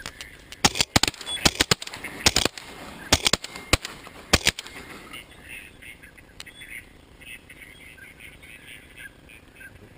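A rapid volley of about a dozen shotgun shots from several guns fired at ducks, packed into the first four and a half seconds. After it come ducks quacking repeatedly.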